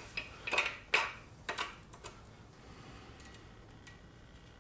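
A few light metal clicks and taps, about six in the first two seconds, as a connecting rod cap is handled and fitted onto its rod on an engine's crankshaft, then only faint room tone.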